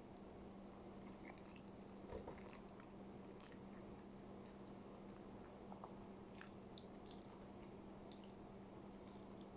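Faint chewing of tuna pasta, with scattered small mouth clicks over a steady low hum.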